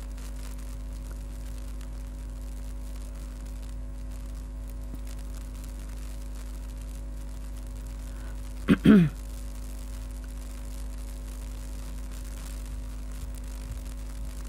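Steady electrical mains hum, with one short voice-like sound of falling pitch about nine seconds in.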